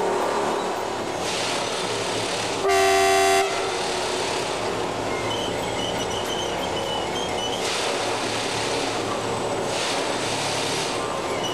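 Plasser & Theurer Dynamic Stopfexpress 09-4X track tamping machine at work: a steady mechanical din from the machine and its tamping units working the tines into the ballast. A single horn blast of under a second, the loudest sound, comes about three seconds in.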